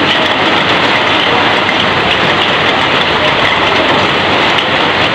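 Heavy rain falling on corrugated roofing and streaming off the roof edge: a loud, steady, unbroken hiss of water.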